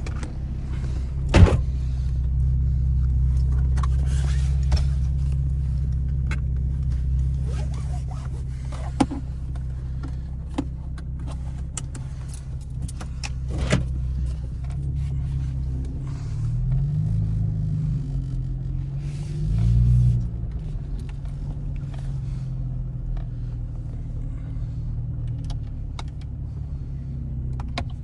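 A 500 hp Camaro's engine running steadily at low speed. Past the middle its pitch rises and falls twice under throttle, the second time loudest. A few sharp clicks come through, one about a second and a half in and another about halfway.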